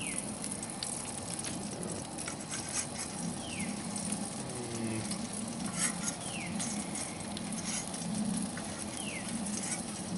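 Butter sizzling in a steel frying pan as pan-fried brook trout are lifted out with a fork, with scattered light clicks of the fork against the pan. A short falling chirp recurs every few seconds.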